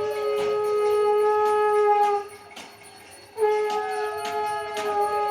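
Conch shell (shankh) blown in two long steady notes, the first ending about two seconds in and the second starting about a second later. Over each note a dog howls along with a falling pitch.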